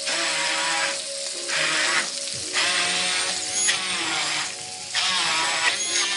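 Hand-held immersion blender (stick blender) running in a pan of boiled celery root and potato with cream, puréeing the chunks; the churning noise surges and drops about once a second over the steady motor whine.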